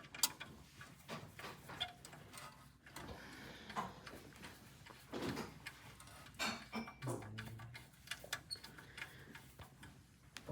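Scattered light clicks and taps at uneven intervals, as small parts and tools are handled while a dental press furnace is worked on.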